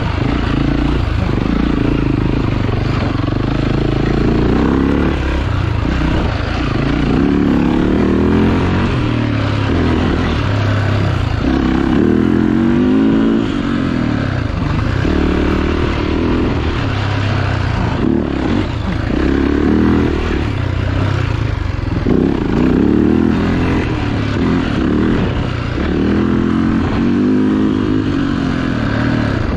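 Dirt bike engine being ridden hard on a trail, the engine note climbing and dropping again and again every few seconds as the throttle is opened and rolled off.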